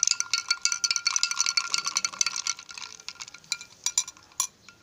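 Metal spoon stirring ice cubes in a glass jug of drink: rapid ringing clinks of spoon and ice against the glass, thinning out after a couple of seconds and stopping about four seconds in.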